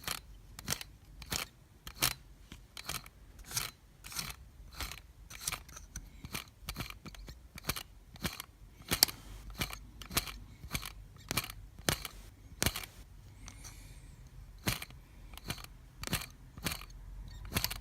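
Small sharp plastic clicks, about two a second and irregular, from the Axial SCX10's transmission spur gear and drivetrain being turned by hand with the cover off. The gears will not drive the wheels, which the owner puts down to a stripped gear.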